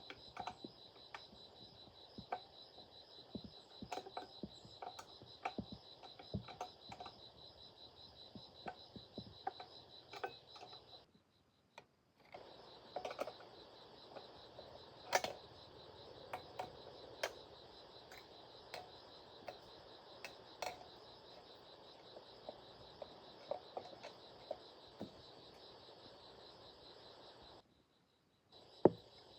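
Insects, crickets, trilling steadily, with scattered light clicks and taps of hand tools being worked on metal machine parts. The sound cuts out briefly twice.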